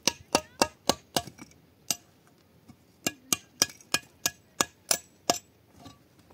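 Hammering: two runs of quick blows, about three a second, each with a short metallic ring, with a pause of about a second between the runs.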